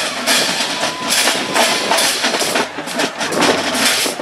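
Marching band members doing a body-percussion routine, clapping, slapping and stomping together in a quick rhythm of sharp hits, about three a second.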